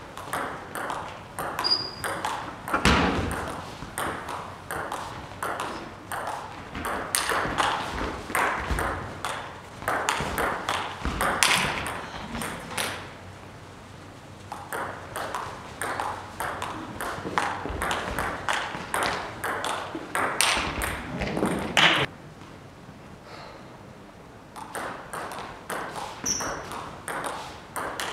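Table tennis ball clicking off bats and table in quick runs of rallies, broken by short pauses between points, with a few louder smacking hits.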